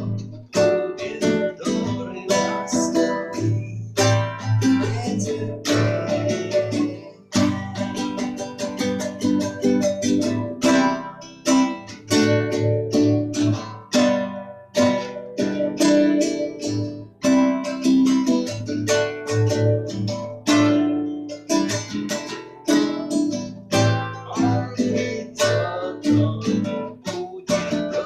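Guitar music: plucked and strummed chords over bass notes in a steady rhythm.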